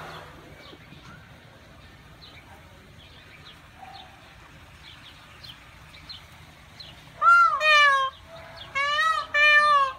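Peacock calling: three loud, high calls in the last three seconds, each rising then falling.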